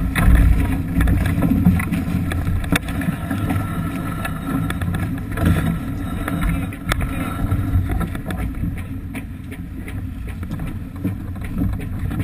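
Wind buffeting the microphone of a camera on a sailing keelboat under way, over the rush of choppy water along the hull. A couple of short knocks cut through, about a third and just past halfway in.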